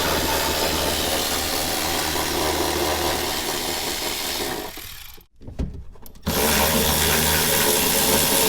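A power tool motor running in two long, steady runs, the first about four and a half seconds and the second starting about six seconds in, with a short pause between them.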